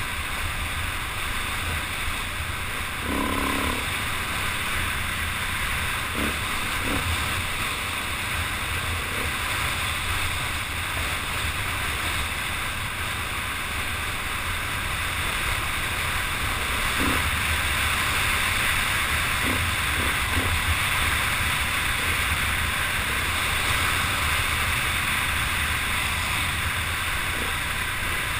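Dirt bike riding over a rough desert track, heard from a helmet-mounted camera: a steady rush of wind over the microphone with the engine running low underneath, and a few brief knocks.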